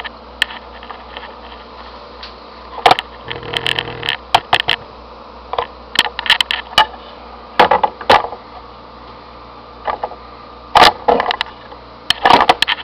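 Spectacled caiman feeding on chopped mackerel: irregular sharp clicks and cracks of its jaws snapping and crunching, coming in bunches several times. A steady low hum runs underneath.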